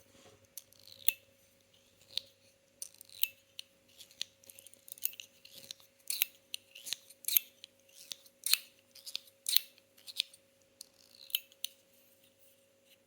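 Metilis metal fidget toy worked by hand: a string of light, sharp metallic clicks and snaps at an irregular pace, some coming in quick pairs, with the mechanism itself very quiet.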